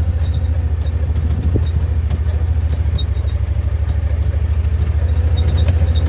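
Vehicle engine running with a steady low rumble and an even, rapid pulse.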